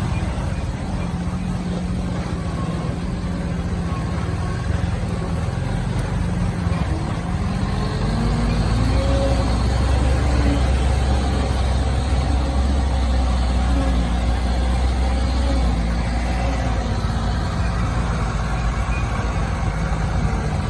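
Loaded sugarcane truck's engine running as it drives along a dirt track. About eight seconds in it revs up and pulls harder with a deep rumble, then eases off again after several seconds.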